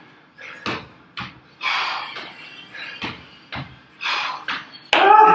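A man doing burpees, breathing out hard in puffs about every two seconds, with thuds of his feet and hands landing on a tiled floor. A short voiced grunt comes near the end.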